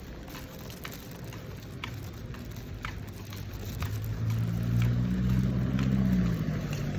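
Steady low rumble of a running vehicle, growing louder about halfway through, with a faint light tick about once a second.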